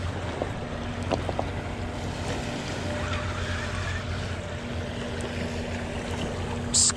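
Steady outdoor wind and water noise with a low steady hum underneath, and a few faint clicks about a second in.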